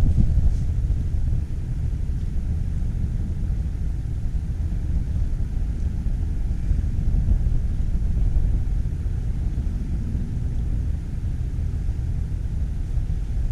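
Steady low outdoor rumble, with no clear pitch and a slightly wavering level.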